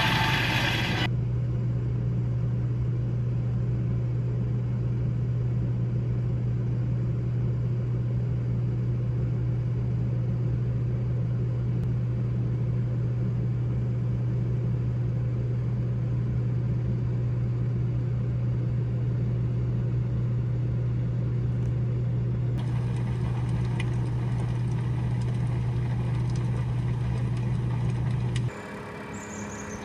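Steady low hum of an engine running at constant speed, which stops abruptly near the end. A quieter background with a few faint chirps follows.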